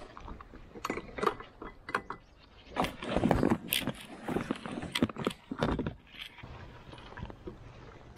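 Fishing gear being handled on an inflatable paddleboard: irregular knocks, clicks and rustling as fly rods are pulled out and set into rod holders.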